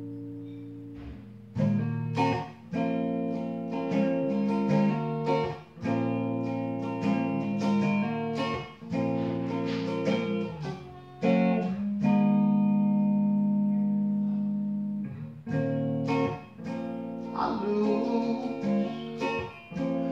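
Electric guitar playing an instrumental break: picked notes and chords struck about once a second, with one long held note about twelve seconds in that slowly fades.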